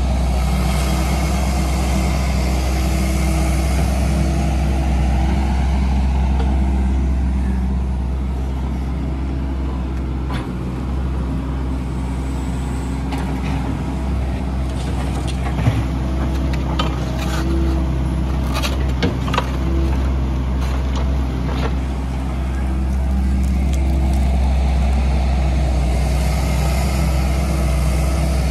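Takeuchi TB257FR compact excavator's diesel engine running steadily as the arm and bucket dig. It runs louder and fuller at the start and again near the end, easing off in between, where a run of sharp clanks and knocks is heard.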